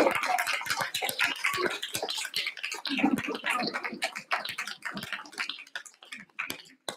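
Small audience applauding, the clapping loud at first, then thinning out and dying away over the last couple of seconds.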